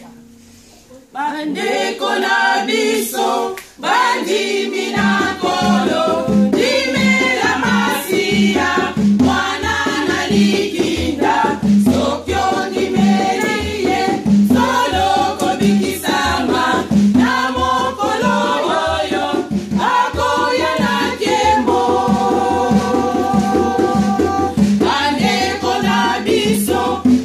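Women's choir singing together, joining in about a second in, with a steady low beat added about five seconds in.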